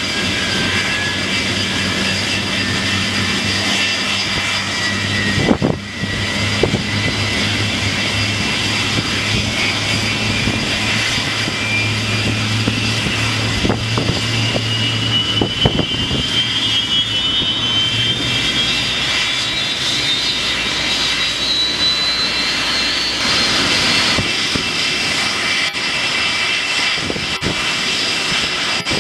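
Rolls-Royce RB211 turbofans of a Boeing 747-400 running, with a high whine rising slowly and steadily in pitch over about twenty seconds as an engine spools up during start. A low hum underneath stops about two-thirds of the way in, and a few short knocks are heard in the first half.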